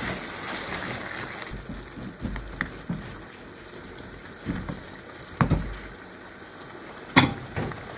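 Sweet and sour pork sauce sizzling in a non-stick frying pan as it is stirred with a silicone spatula, with a few short knocks of the spatula against the pan, the sharpest about five and a half and seven seconds in.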